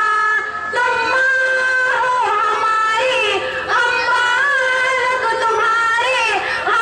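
Girls singing a song through a loudspeaker, holding long notes that waver and slide between pitches, over a steady held tone underneath.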